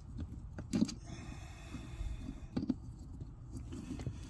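Handling noise from small hardware and tools being moved about, with two sharp light knocks, about a second in and again past the middle, and a few softer clicks.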